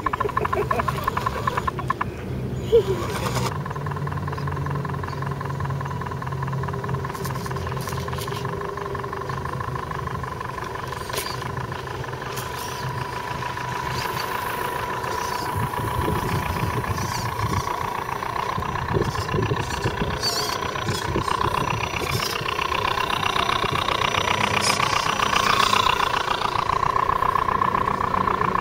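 Electric motors and gear transmissions of scale RC crawler trucks whining steadily as they creep over rough, rocky ground, with scattered small clicks and knocks from tyres and loose rock. A single sharp knock about three seconds in.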